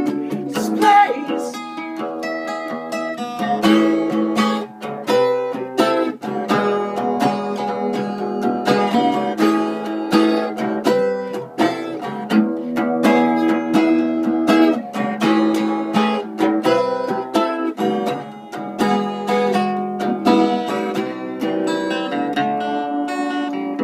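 Instrumental break of a song: a plucked acoustic string instrument strummed and picked in a steady run of chords, with no singing.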